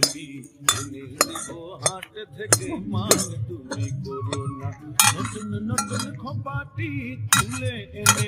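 Metal spatula scraping and clinking against a metal karai as fried beans are scraped out into a steel bowl: a dozen or so sharp clinks at irregular intervals.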